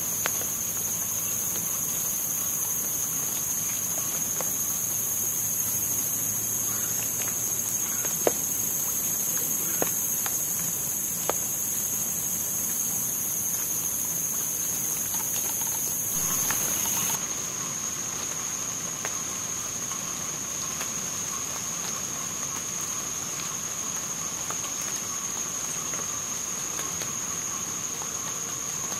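Steady, high-pitched swamp insect chorus, with a hiss above a thinner whine; the highest part of the hiss stops abruptly a little past halfway. A few sharp taps of rainwater dripping from the trees are heard in the first half.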